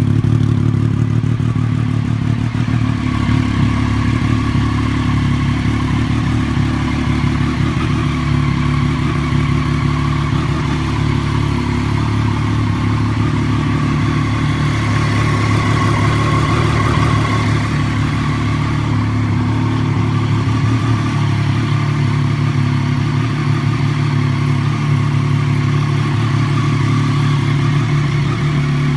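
Motorcycle engine running at a nearly steady pitch throughout, with no big revs.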